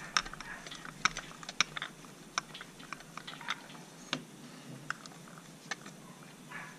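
Irregular light clicks and taps of metal on metal as pistons in ring compressors are worked against the cylinder block while being lined up with the bores.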